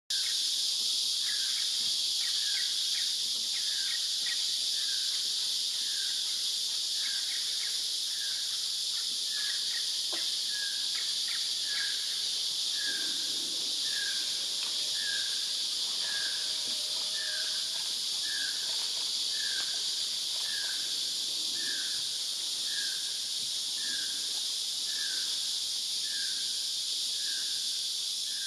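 Rainforest insect chorus, a steady high-pitched drone, with a short call repeated evenly about once a second. A few other brief calls come in during the first half.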